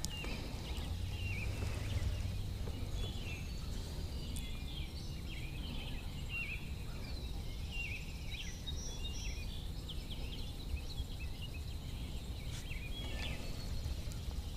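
Birds chirping and calling in short, quick notes over a low, steady rumble.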